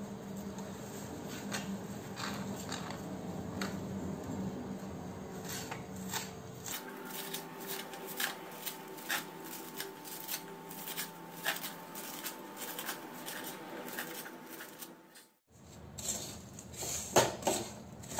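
Knife chopping fresh coriander on a wooden cutting board, irregular taps of the blade hitting the board. Near the end a wooden spatula stirs a dry, crumbly masala in a metal kadhai.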